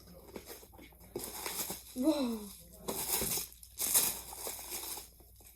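Packaging of a parcel of fidget toys rustling and crinkling in several irregular bursts as the box is opened by hand.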